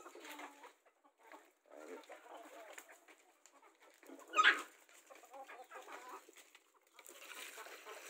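Domestic chickens clucking softly, with one brief, louder call about four and a half seconds in.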